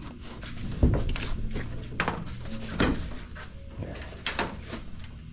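A series of clunks and knocks, like doors and handling, over a steady low hum.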